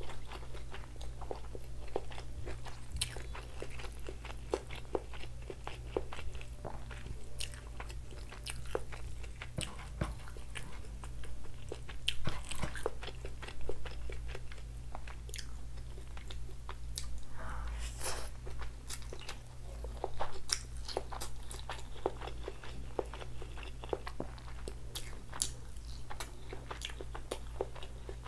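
Close-miked eating of Indo-Chinese takeaway food (noodles, chilli chicken, momos): steady wet chewing with bites and crunches and a dense run of small mouth clicks, with a few louder bites about twelve and twenty seconds in.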